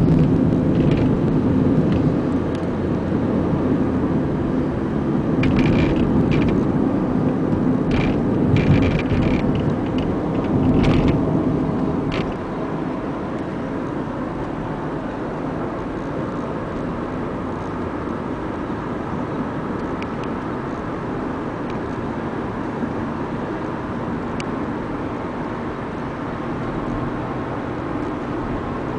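Road and engine noise of a moving car heard from inside the cabin, a steady rumble that is louder for the first twelve seconds and then settles lower. A few short clicks sound in the first half.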